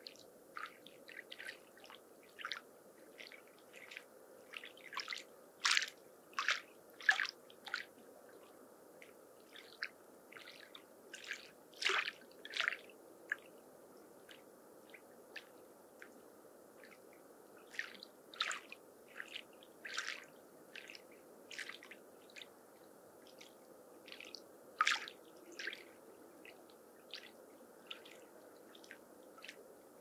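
Small waves lapping at a lake shore: irregular little splashes and drips, a few louder than the rest, over a soft steady wash of water.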